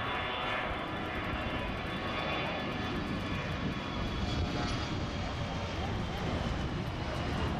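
Twin rear-mounted GE CF34 turbofans of a Bombardier CRJ regional jet at takeoff power during its takeoff roll: a steady high jet whine over a rumble, the whine thinning out toward the end.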